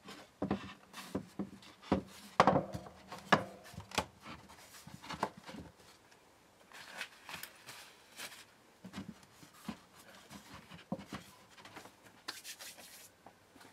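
Wooden tray frame being handled and shifted on a wooden workbench: irregular light knocks and taps of wood on wood, the loudest a few seconds in, with some rubbing and scuffing.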